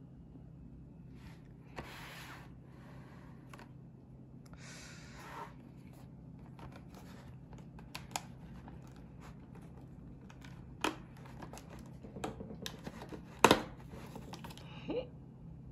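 Cardboard of a chocolate Advent calendar rubbed and rustled under the hands. Near the end a perforated cardboard door is pried and torn open in a series of sharp cracks, the loudest snap coming a couple of seconds before the end.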